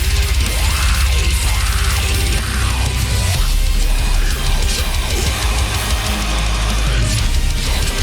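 Deathcore song playing loud: heavy distorted guitars over dense, fast drumming, with no break.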